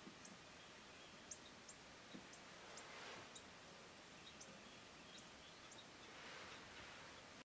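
Near silence with a faint background hiss and about ten short, high bird chirps spaced irregularly a fraction of a second apart.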